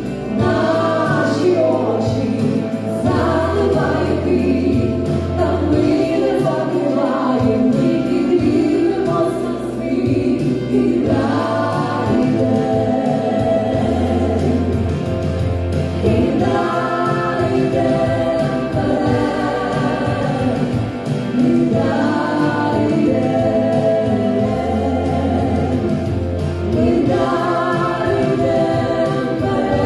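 A choir singing with instrumental accompaniment. A deep bass note is held for several seconds at a time, then drops out, then returns.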